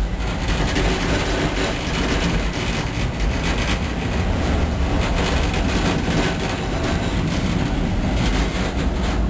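Blackpool Centenary-class tram car 646 running along the track, heard from inside its saloon. A steady low rumble of wheels on rail comes with continual rattling and small clicks.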